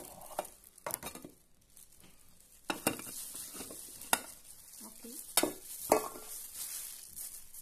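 Spatula scraping and knocking against a metal pot and a ceramic plate while sticky cooked glutinous rice is scooped out of the pot, with a series of sharp, irregular knocks.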